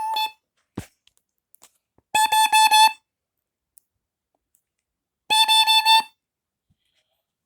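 Kidde KN-COB-DP-H carbon monoxide alarm sounding under its test button: a shrill electronic beep in short groups of rapid pulses. A brief beep comes right at the start, then two full groups about three seconds apart.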